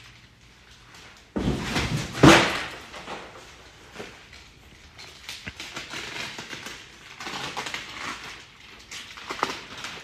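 Plastic stretch wrap crinkling and tearing as it is pulled off a tall equipment cabinet. There is a loud burst of ripping about a second and a half in, then irregular crackling rustles.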